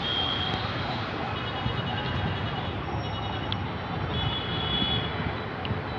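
Steady road traffic noise from passing cars, buses and CNG auto-rickshaws, with short high beeps sounding now and then.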